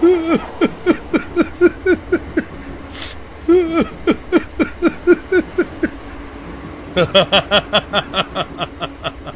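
A cartoon man's voice in three runs of short, falling vocal bursts, about three to four a second, broken by brief pauses, with a short hissing burst about three seconds in.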